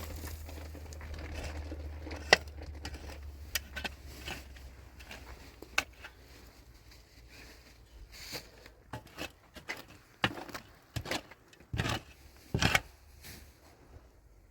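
Scattered sharp clicks and knocks with some crinkling, as of materials being handled, over a low steady hum that fades about halfway through.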